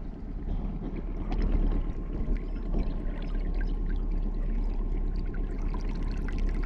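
Water lapping and splashing close to the microphone, with small trickles and drips and a steady low rumble underneath.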